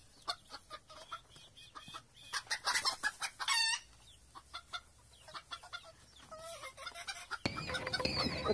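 Chickens clucking in a string of short, sharp calls. A louder outdoor background with other bird chirps comes in near the end.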